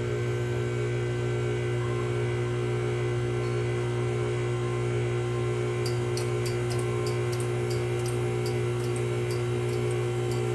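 Uniflex UA4 hydraulic hose crimper's power unit running steadily as it crimps a fitting onto the hose, a constant hum. From about six seconds in, light regular ticking joins it, a few times a second.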